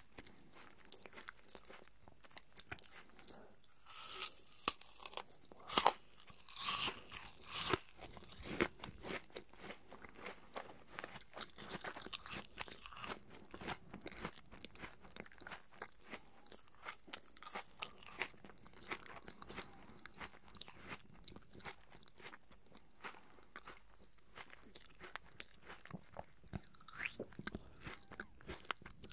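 Close-miked chewing of juicy apple pieces: wet crunches and mouth clicks, loudest for a few seconds near the start, then a steady run of softer chewing.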